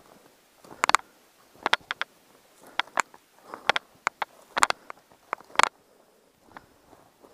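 Footsteps through dry, woody scrub: irregular cracking and snapping of twigs and brittle brush underfoot at a walking pace.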